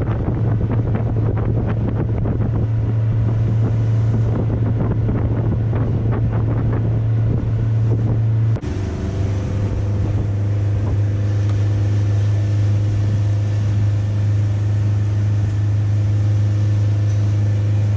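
Outboard motor of a small aluminium boat running steadily at cruising speed, a constant low drone, with wind buffeting the microphone and water rushing past the hull. The drone dips for a moment a little before halfway, then carries on steady.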